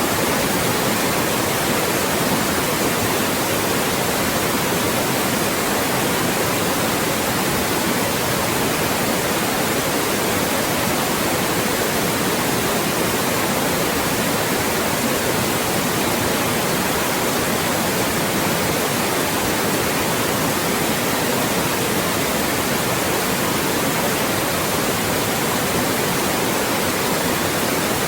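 Loud, steady synthetic white noise, an even hiss with no change, played as a speech-masking sound.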